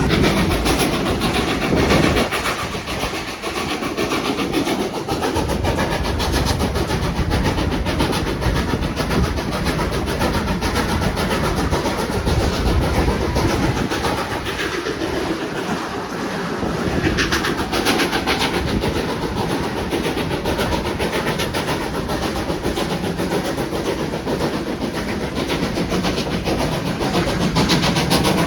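Steam train running along the track: a steady rumble and rattle of wheels on the rails that keeps up without a break.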